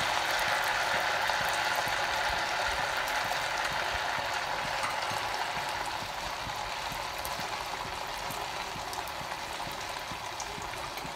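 Hot oil sizzling and bubbling in an iron kadai around a frying piece of aloo tikki. The sizzle is steady and slowly grows quieter.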